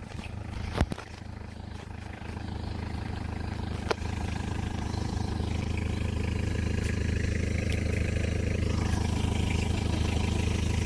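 Four-wheel-drive jeep's engine running steadily, growing louder over the first few seconds. There is a sharp crack about a second in and a lighter click about four seconds in.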